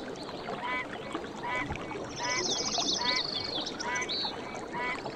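Tropical forest wildlife: one animal call repeated about once a second, each call a quick series of notes stepping down in pitch, over a steady noisy background. A high, rapid trill comes in about two seconds in and lasts about a second.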